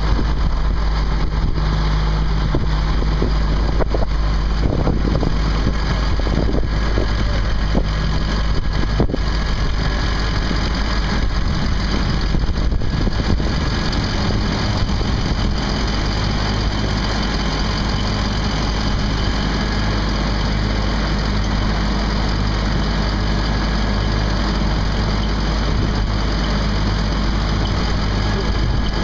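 Fire engine running steadily at idle, a constant low engine hum.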